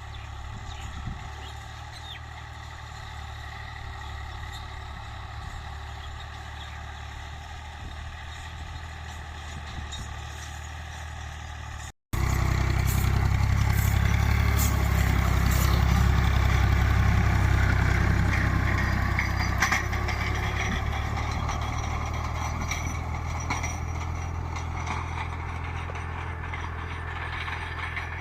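Tractor engine running steadily while ploughing. After a brief cut about twelve seconds in it is louder, then slowly eases off.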